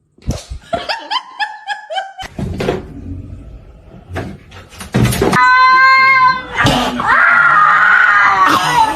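Quick bursts of laughter, then two long, loud wailing cries, the second the loudest.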